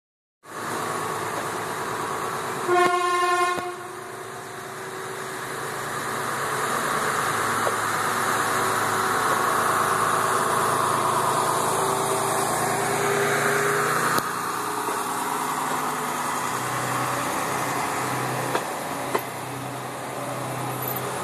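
A DT1 diesel train sounds its horn once, a single steady tone lasting about a second, about three seconds in. Its diesel engine runs as the train pulls out, the noise building to a peak in the middle and then easing into a steadier drone.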